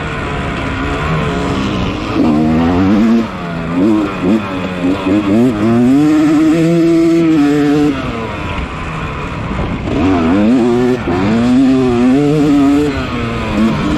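Yamaha 250 dirt bike engine racing under hard throttle, its pitch climbing and falling again and again, with a brief let-off about eight seconds in.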